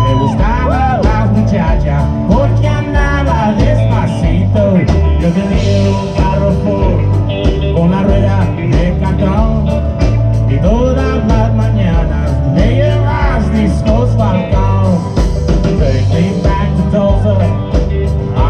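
Background music: an upbeat country-style song with a steady, regular bass beat and a wavering melodic lead line over it.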